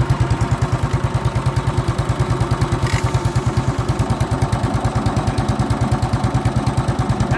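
A 1958 vintage tractor engine idling with an even, steady beat of about eight pulses a second. There is a single sharp click about three seconds in.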